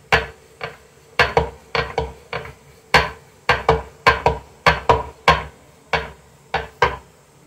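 Wooden rolling pin and round chapati rolling board knocking as wheat-flour dough is rolled out thin: a string of sharp wooden knocks at an uneven two or three a second, each with a brief ring, stopping shortly before the end.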